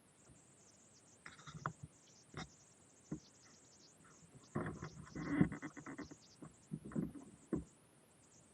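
Irregular knocks, rattles and scraping from an RC crawler truck's chassis and tyres bumping over rough ground, picked up by a camera mounted on the truck; the busiest cluster comes about five seconds in, over a faint steady hiss.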